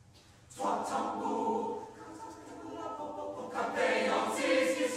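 Mixed choir of men's and women's voices singing together. It enters loudly with a full chord about half a second in, eases off near two seconds, then swells again toward the end.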